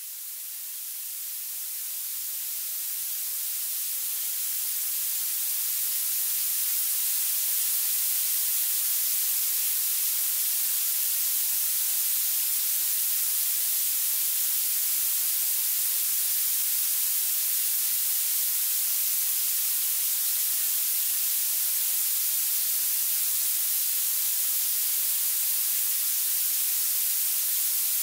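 Violet (purple) noise: an even, steady hiss weighted heavily toward the highest pitches, with almost no low end. It swells in over the first several seconds, then holds steady.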